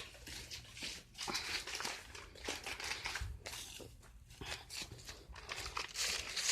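Irregular rustling and crackling noises, coming and going unevenly.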